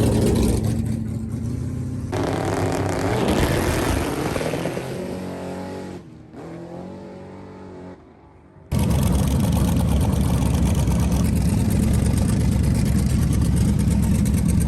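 Loud drag-race car engines in a run of short clips: engines revving with pitch rising and falling, cutting off abruptly a couple of times. From about nine seconds in, one engine runs loud and steady with a dense, rough rumble.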